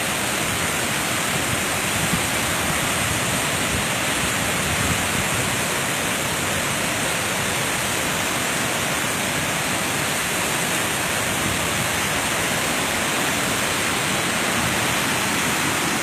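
Steady rush of a tall waterfall pouring onto rocks, an even, unbroken roar of falling and splashing water.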